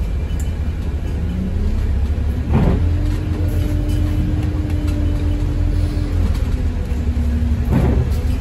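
ADL Enviro200 MMC single-deck bus on the move: steady low engine and road rumble with a steady whine that drops in pitch about six seconds in. Two short rushes of noise stand out, a few seconds in and near the end.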